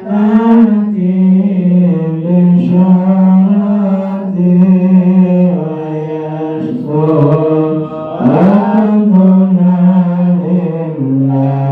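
A man's voice chanting a prayer in long held notes, moving in steps between a few pitches with short breaks for breath.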